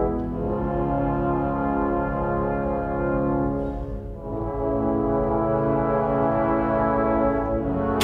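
Brass-led music playing slow, sustained chords, with a brief dip in loudness about halfway through.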